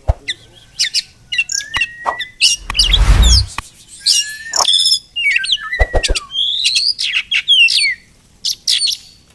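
Oriental magpie-robin singing a varied song of loud whistled notes, rising and falling sweeps and quick trills, with a few sharp clicks between phrases. A brief loud rumbling burst of noise cuts in around three seconds in.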